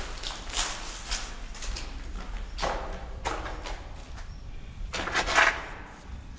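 Footsteps on a gritty, debris-covered floor in a bare concrete room, irregularly spaced, with a longer, louder scuff about five seconds in.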